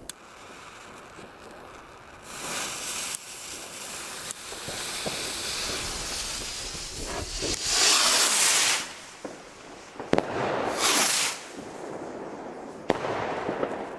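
Three burst rockets from a Nico firework assortment going off: a long sparking hiss as the fuses and motors light, then loud rushing whooshes as the rockets leave the stand, and single sharp cracks about ten and thirteen seconds in as they burst.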